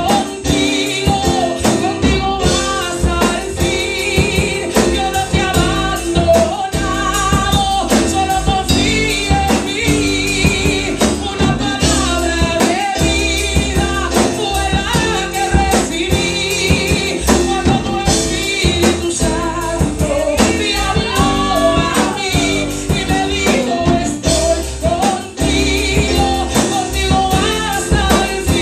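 Female vocalist singing a gospel song into a handheld microphone, holding long wavering notes with vibrato, over keyboard and drum-kit accompaniment played through PA speakers.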